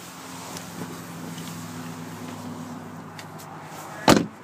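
A steady low hum for about three seconds, then a single loud thump about four seconds in: the door of a 2013 Chevrolet Camaro SS being shut.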